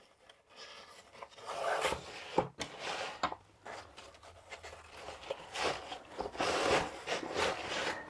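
Elastic shock cord being pulled through nylon webbing loops on a backpack, with the cord and fabric rubbing and rustling in irregular bursts and a few light clicks.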